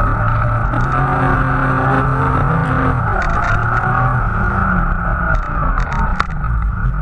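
Polaris snowmobile engine running at speed with a steady drone that eases off and picks up again about three seconds in, over a steady hiss, with a few sharp clicks.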